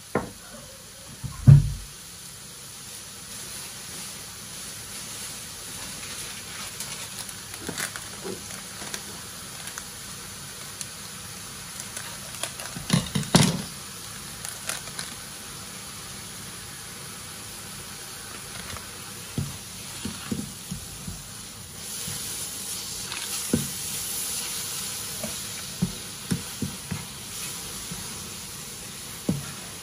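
Wooden spoon knocking and scraping in a frying pan of grated carrot, milk powder and sugar, over a low sizzle. There is a loud knock near the start and a clatter about halfway through. The sizzling grows louder about two-thirds through as the mixture turns wet in the heat, with more spoon knocks against the pan.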